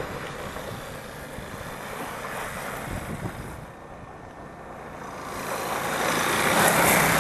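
Small youth quad's engine running and drawing closer, getting steadily louder over the last two seconds as it passes close by.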